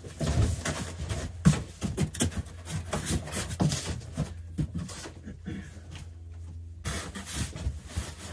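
Cardboard box being opened and handled: flaps and packing scraping and rustling, with scattered knocks, over a steady low hum.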